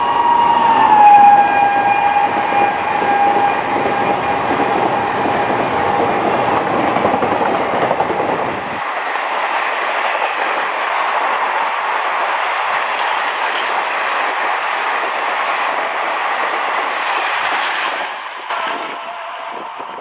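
Horn of a WAP-4 electric locomotive blowing as the express rushes past at speed, dropping in pitch about a second in as the engine goes by, then dying away over several seconds. The coaches follow with a steady rush of wheel and rail noise that fades near the end as the train draws away.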